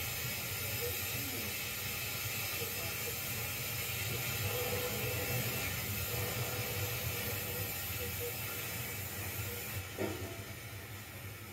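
O gauge model tank locomotive running slowly along the track: a steady hiss over a low rumble, with a brief knock near the end.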